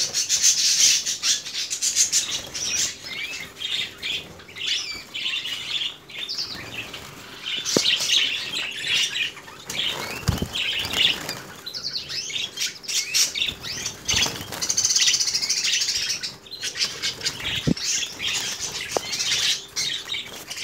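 Caged red mosaic canaries chirping and twittering continuously, with wings flapping as birds fly between perches. A couple of dull thumps come near the middle.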